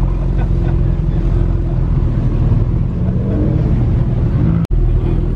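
A McLaren sports car's twin-turbo V8 running as the car rolls slowly past, with a short rise in engine pitch about three seconds in. Near the end the sound cuts out for an instant and another car's engine follows.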